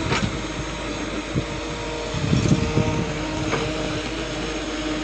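A steady mechanical hum with a few clicks and knocks, and a short rough clatter about halfway through.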